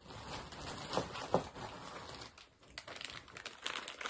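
Wrapping paper crinkling and rustling in quick, uneven crackles as a small present is unwrapped by hand.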